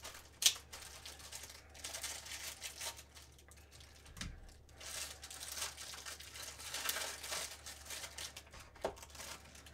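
Clear plastic bag crinkling and rustling as it is pulled and worked off a small cardboard box, with one sharp click about half a second in.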